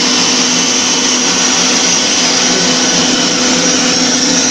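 Electric stand mixer running at a steady speed with a constant motor hum and whir, whisking egg, yolks and sugar in its stainless steel bowl.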